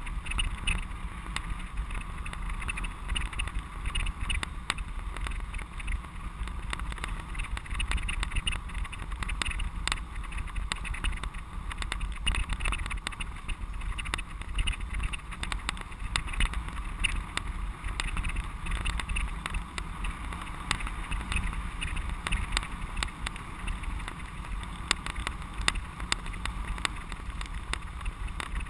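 Riding noise of a racing bicycle on a dirt track, heard from a camera on the bike: a steady low rumble of wind on the microphone with many small rattles and clicks.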